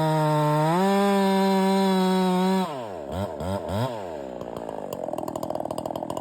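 Ported Holzfforma 372G two-stroke chainsaw running steadily at high revs, then the throttle is released about two and a half seconds in: the revs fall away, blip a few times, and settle to idle.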